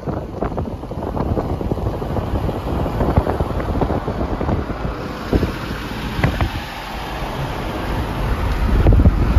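Wind buffeting the microphone over the low rumble of a moving vehicle and road noise, growing louder near the end.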